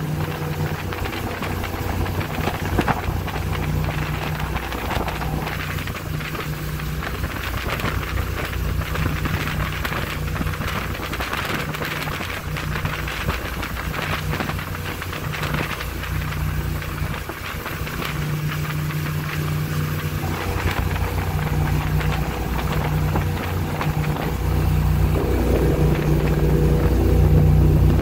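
Speedboat under way at speed: steady engine drone mixed with wind on the microphone and water rushing from the hull, getting louder near the end.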